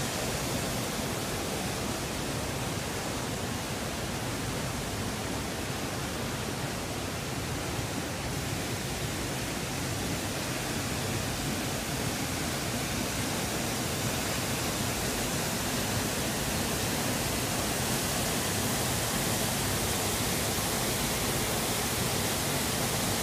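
Waterfall making a steady, even rush of falling water, which gets a little louder in the second half.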